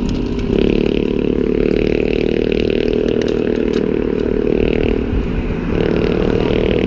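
Riding noise from a mountain bike on a paved road, picked up by a handlebar-mounted camera: wind on the microphone and the rattle of the bike, with a motor vehicle's engine as it passes.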